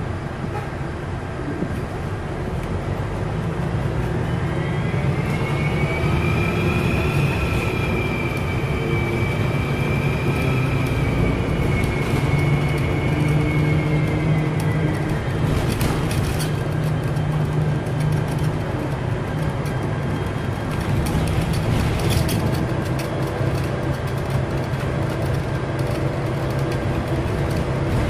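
Bus diesel engine running under load with a loud turbocharger whistle that rises about four seconds in, holds, and falls away about fifteen seconds in. The engine drone carries on afterwards with a few short rattles.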